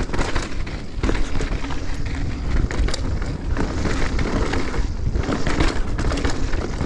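Mountain bike riding down a dirt trail: tyre noise over the ground with frequent clattering knocks from the bike over bumps, and wind buffeting the microphone.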